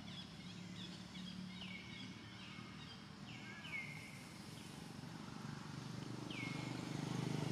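Repeated short, high animal calls, each sliding down in pitch and then holding briefly. Several come in the first few seconds and one more near the end, over a low hum that grows louder toward the end.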